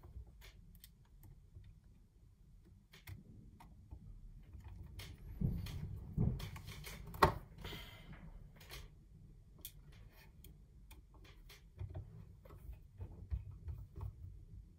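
Small clicks and light knocks of a screwdriver and tiny screws against the plastic shell of a DJI Mavic Air drone as it is screwed back together, with a burst of handling noise and one sharper click about seven seconds in.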